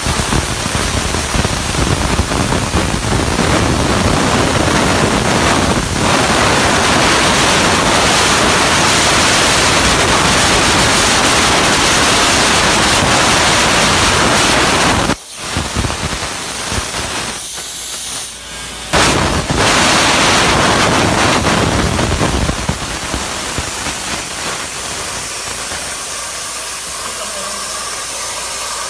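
CNC plasma cutter's torch cutting metal: a loud, steady hiss. It breaks off sharply about halfway, comes back weaker, returns to full strength a few seconds later and grows thinner near the end.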